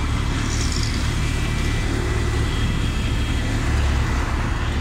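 LiAZ 5292.67 city bus's YaMZ-53624 compressed-natural-gas engine running with a steady low rumble, heard from just behind the bus, with road traffic around it and a car passing about four seconds in.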